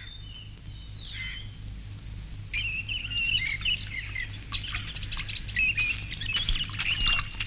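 Birds chirping, faint at first and becoming a busy chorus of short chirps about two and a half seconds in, over a faint low hum.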